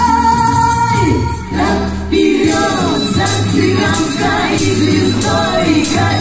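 Music through loudspeakers: a song ends on a long held sung note about a second in, and after a brief pause a lively Gypsy-style dance tune with a steady beat and jingling starts about two seconds in.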